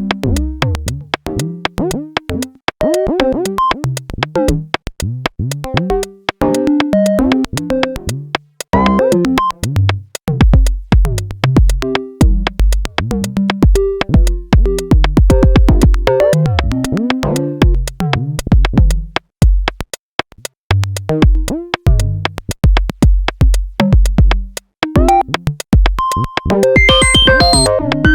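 Electronic music from a software modular synthesizer patch: sequenced synth notes stepping in pitch over drum-machine percussion and a pulsing bass, the melodies quantized to a scale and the rhythm and timbre shifting as the patch is modulated.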